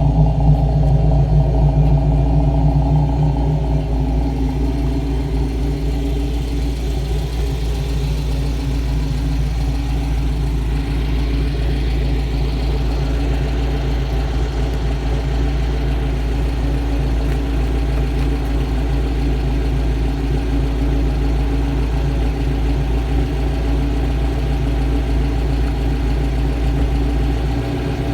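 Car engine with a stage 2 camshaft idling, a steady note that eases slightly in level after the first few seconds and then holds even.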